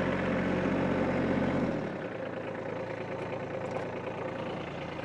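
Kubota B2301 compact tractor's three-cylinder diesel engine running steadily. About two seconds in the sound drops, its deepest part falling away, and it runs on quieter.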